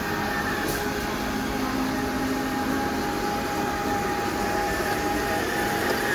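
EcoBot 75 autonomous floor-scrubbing robot running as it washes the floor, a steady mechanical hum with a few held whining tones.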